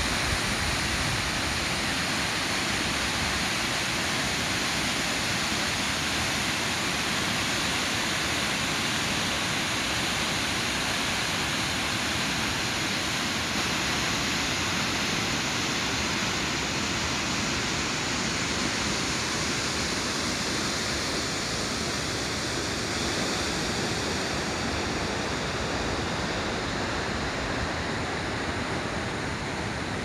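Large waterfall rushing steadily, a dense even sound of falling water that gets slightly duller and softer near the end.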